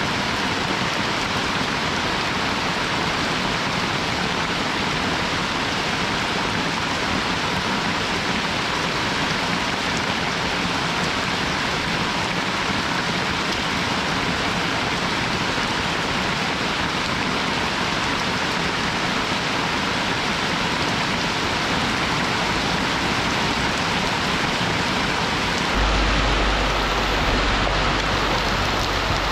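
Rain falling steadily, an even hiss with no let-up. About three seconds before the end a deep low rumble joins in.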